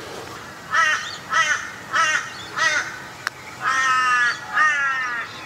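A crow cawing: four short caws about half a second apart, then two longer drawn-out caws. A single sharp click sounds about three seconds in.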